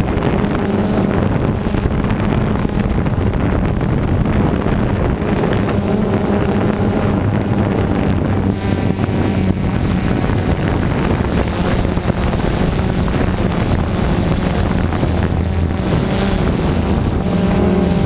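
Multirotor drone's motors and propellers humming steadily, with wind rumbling on the microphone.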